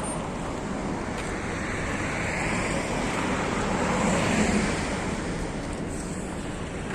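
Road traffic passing close by: tyre and engine noise swells as a vehicle goes past, loudest about four seconds in, then fades.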